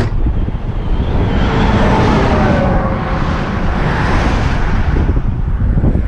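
Highway traffic passing close by, with wind rumbling on the microphone. Passing vehicles swell about two seconds in and again about four seconds in.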